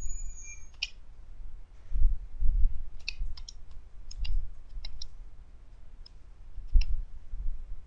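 Computer keyboard keystrokes: single clicks and short runs with pauses between them, some with a dull low thump.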